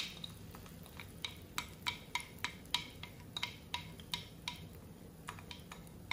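A spoon scraping sourdough-starter batter out of a ceramic bowl, clinking against the bowl in an irregular run of sharp ticks, about three a second.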